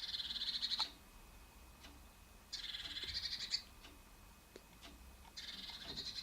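Blue tit giving three rapid, buzzy churring trills, each about a second long, spaced a couple of seconds apart.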